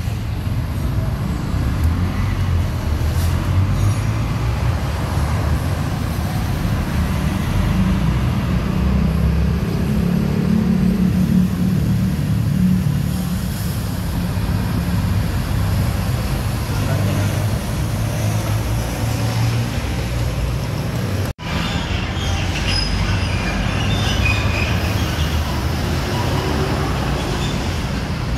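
Rear-mounted six-cylinder diesel of a Mercedes-Benz OH 1626 coach running low and steady as the coach moves off slowly and passes close by, loudest a little before the middle. The sound cuts out for an instant about three-quarters of the way through.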